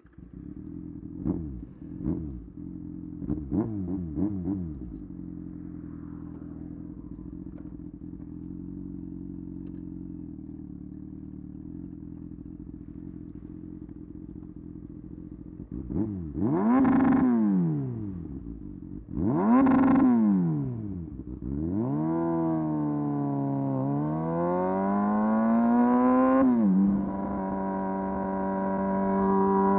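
Motorcycle engine idling with a few quick throttle blips, then two long revs that rise and fall. After that the engine pitch swings down and up and settles into a steady, higher note near the end.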